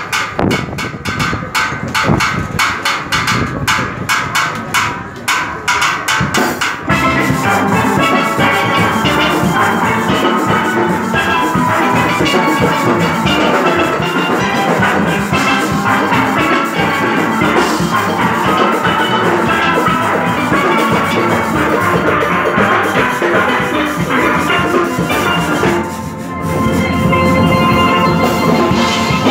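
A junior steel orchestra of many steel pans playing a fast panorama arrangement, backed by drums and percussion. The playing is lighter and more clipped for the first several seconds, then the full band comes in louder about seven seconds in, with a short drop just before the end followed by a swell in the low pans.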